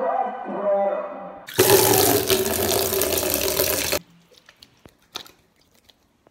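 Music fades out in the first second and a half. Then a water tap gushes into a sink for about two and a half seconds and cuts off suddenly, leaving faint drips and small splashes as wet hands are rubbed together, washing for ablution.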